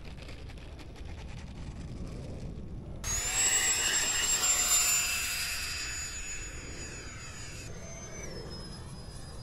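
Whine of a radio-controlled electric ducted-fan jet at high throttle. It starts suddenly about three seconds in, with several high steady tones that fade over the next few seconds and drop in pitch near the end. A low rumble lies under it.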